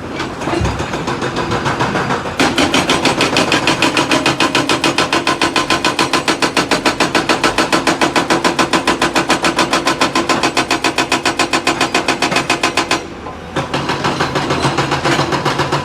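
Hydraulic rock breaker on a Tata Hitachi EX 210 LC excavator hammering stone in a fast, steady run of blows, about eight a second. It stops for a moment near the end, then starts again.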